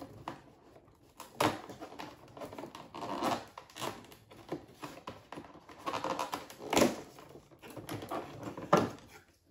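Cardboard advent calendar being handled as one of its doors is worked open: rustling and scraping, with several sharp clicks and taps.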